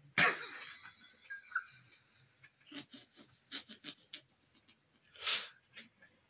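A person laughing without words: a sharp burst of laughter just after the start, then a run of short breathy laugh pulses, and a loud breathy exhale about five seconds in.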